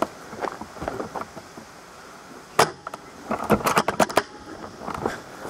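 A single sharp snap about two and a half seconds in, followed about a second later by a quick run of clicks and rattles.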